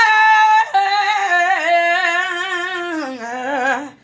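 Woman singing a gospel song unaccompanied, in a wordless melisma: a held high note, then a lower run with vibrato that slides down about three seconds in and breaks off just before the end.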